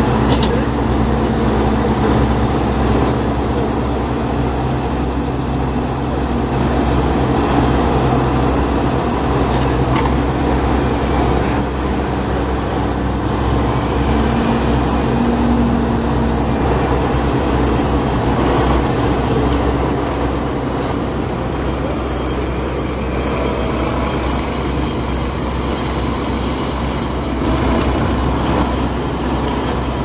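Compact excavator's diesel engine running steadily while the boom and bucket with thumb are worked.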